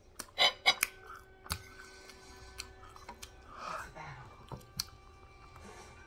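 Close-up chewing and mouth sounds of someone eating toast and spaghetti, with a cluster of loud, sharp clicks about half a second in, then scattered softer clicks.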